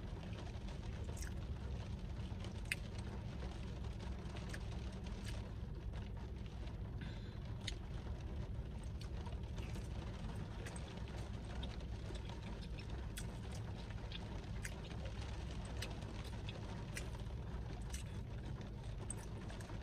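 Steady low hum inside a car cabin, with scattered light ticks and clicks throughout.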